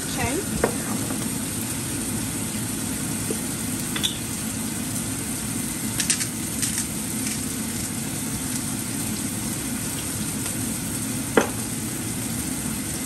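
Two beef steaks sizzling steadily in butter in a frying pan, with a few small clicks and a sharp tap near the end.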